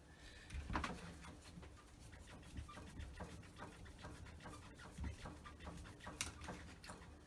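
Irregular small metallic clicks and taps as parts of a Holley carburettor are handled and worked on the bench, with a few louder knocks among them.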